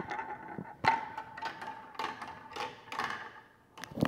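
A ball rolling through a plastic marble-run toy, making a string of irregular hard clacks as it drops along the plastic tracks and funnel, with a faint steady ringing underneath.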